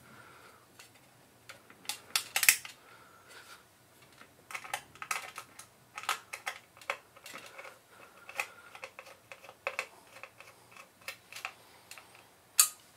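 Small steel screws and a screwdriver clicking and tapping against an aluminium drive bracket, in scattered light clicks with one sharper click near the end.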